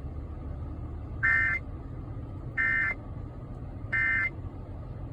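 Emergency Alert System end-of-message data bursts: three short, buzzy digital squawks about a second and a half apart, the signal that the severe thunderstorm warning alert is over. A low steady hum runs underneath.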